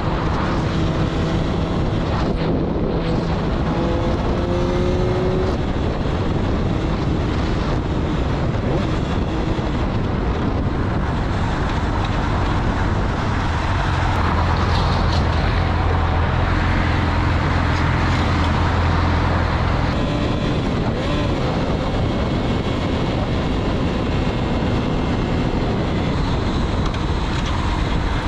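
Yamaha sport bike's engine running at freeway speed under heavy wind rush over the microphone. The engine pitch rises a little between about two and six seconds in, and the hum and rush grow stronger for a few seconds in the middle.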